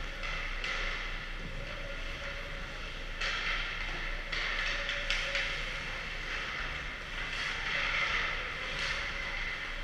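Hockey skates scraping and carving across rink ice in repeated swells of hiss, with a few sharp clacks of sticks or pucks about five seconds in, over a steady low hum from the arena.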